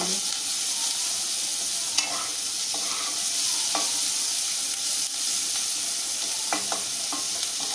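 Chopped onions sizzling steadily in hot oil in a kadai as they are stirred and fried until browned, with a sharp tap about two seconds in and another about five seconds in.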